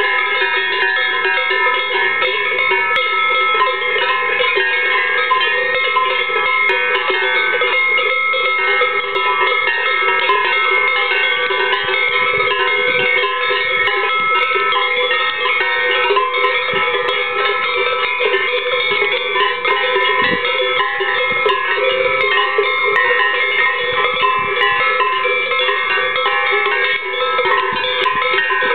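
Many cowbells on grazing cattle clanking continuously. Their overlapping tones at many different pitches form a dense, unbroken jangle.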